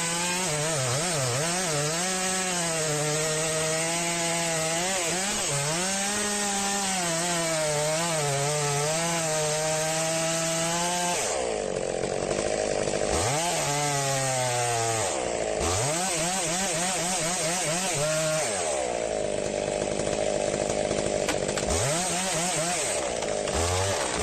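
A chainsaw working: for about the first eleven seconds the engine runs steadily under load, its pitch wavering as it cuts into wood. From about eleven seconds in, the engine is revved up and down several times, its pitch rising and falling with each rev.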